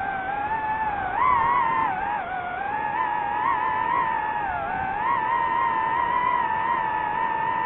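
DJI FPV drone's motors and propellers whining steadily, the pitch shifting up and down with the throttle; a sharp rise about a second in.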